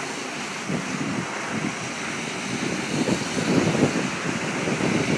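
Floodwater from a burst water main rushing across a road, a steady hiss, with irregular low buffeting from wind on the microphone.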